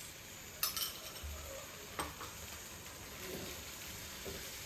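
Mango sauce sizzling in a pan while a spoon stirs in cornstarch to thicken it, with a couple of sharp clinks of the spoon against the pan.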